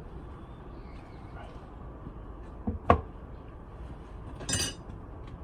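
Beehive equipment being handled: a soft knock followed at once by a sharp clack near the middle, then a short rasping scrape about a second and a half later.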